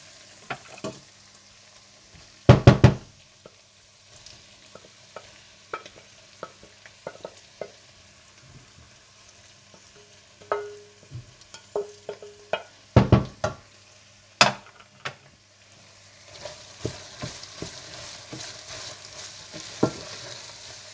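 Wooden spatula knocking and scraping against a stainless-steel pot and cutting board as sliced onions and green chillies are added to frying mince, with a few loud knocks about two and a half seconds in and again around thirteen seconds. From about sixteen seconds the mince sizzles in the oil as it is stirred.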